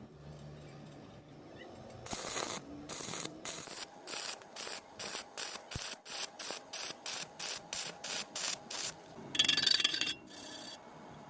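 Rhythmic scraping strokes, about three a second, like a file or brush worked back and forth over metal, followed near the end by a louder, longer scrape.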